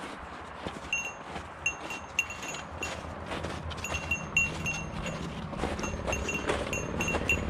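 A small bell jingling in short, irregular rings, a few times a second, carried along by the walking hikers. A low rumble grows louder in the second half.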